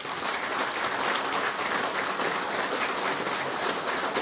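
A large audience applauding, many hands clapping at a steady level.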